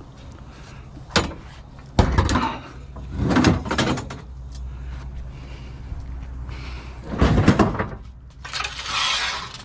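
Rusty metal bed frame being handled: several separate clanks and knocks, then a longer scraping slide near the end.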